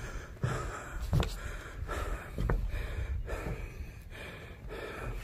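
A person breathing audibly close to the microphone, with a soft breath roughly every second, over a low rumble on the microphone.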